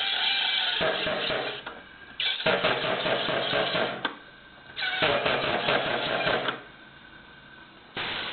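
SodaStream home carbonator being pressed in repeated blasts, carbon dioxide rushing into the bottle of water with a loud rattling buzz. There are three long blasts of about two seconds each and a short one near the end.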